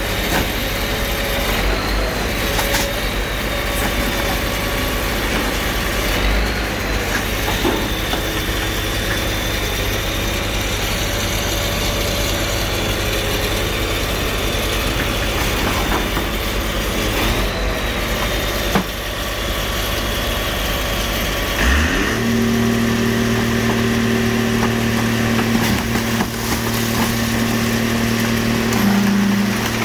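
Car crusher's engine and hydraulic press running steadily as the crushing lid presses down on a stack of cars, with a high whine over the engine. About 22 seconds in the sound changes suddenly to a deeper, steady hum with strong pitched tones.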